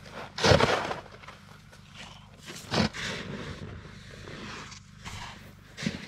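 Snow shovel cutting into and scooping deep packed snow: three loud crunching scrapes, the loudest about half a second in, another near three seconds, and the last near the end.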